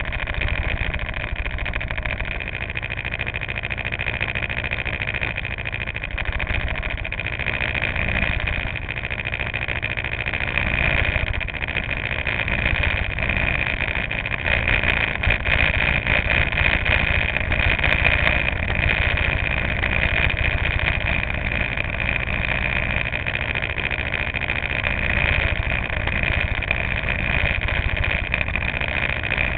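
Go-kart engines idling, a steady running drone with a constant high whine.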